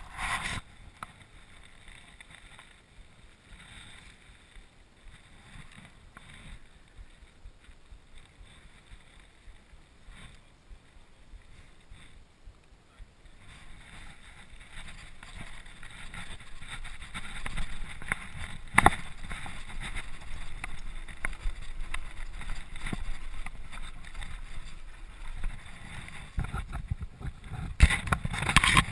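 Mountain bike rolling down a gravel forest trail, heard from a helmet-mounted camera: low tyre rumble, rattle and wind noise on the microphone, quiet at first and growing louder from about halfway, with one sharp knock partway through.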